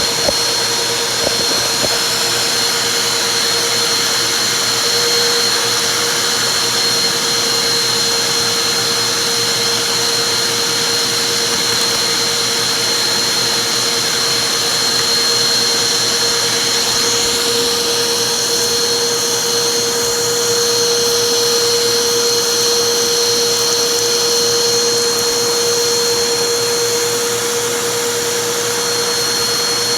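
Vacuum cleaner running steadily with a constant motor whine, a couple of brief clicks about a second in.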